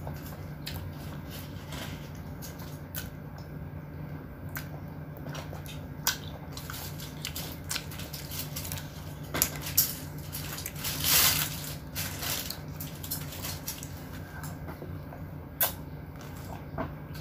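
Close-miked eating sounds: wet chewing and slurping of spaghetti, with scattered clicks of a plastic fork and a louder noisy rush about eleven seconds in.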